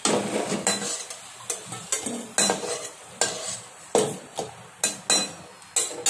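Metal spatula scraping and clinking against a steel kadai as fried potato pieces are lifted out of the hot oil, with sharp scrapes about twice a second. The oil sizzles faintly between the strokes.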